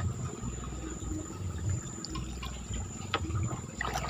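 River water swirling and lapping around a moored wooden longboat on a fast-flowing river, with a steady high insect drone and a single sharp click about three seconds in.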